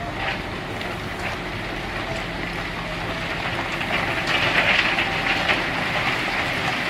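Tipper semi-trailer unloading crushed stone: the tractor unit's diesel engine running steadily under a rushing, rattling slide of stone pouring out of the raised body, the rush growing louder about four seconds in.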